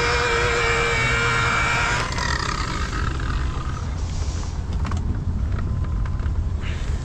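Electric polisher running against the ceiling with a steady whine, which fades away from about two seconds in, leaving a low rumble and a few light clicks.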